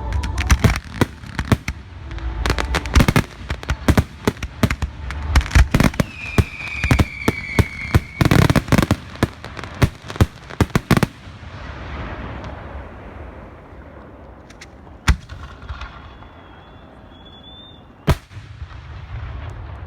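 Fireworks display: a dense barrage of bangs and crackling for about eleven seconds, with a whistle falling in pitch partway through. It then thins out to two single loud bangs near the end, with a short whistle just before the last one.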